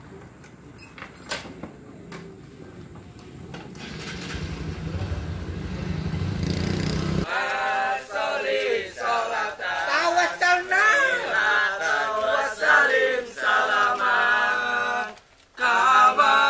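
A low rumbling noise builds up over the first seven seconds and stops abruptly. Then men's voices sing or chant together, breaking off briefly near the end before going on.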